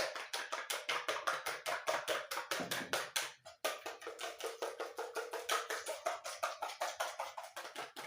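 A utensil beating eggs and sugar in a bowl, clicking against the bowl in a fast, even rhythm of about six strokes a second, with a brief pause about three and a half seconds in.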